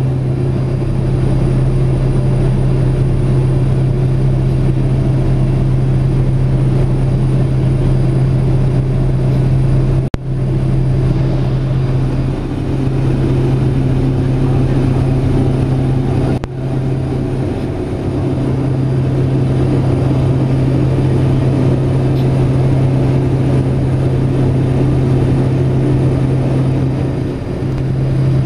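Pilatus PC-6 Porter's turboprop engine and propeller droning steadily, heard inside the cabin. The drone breaks off for an instant twice, about ten seconds in and again about six seconds later.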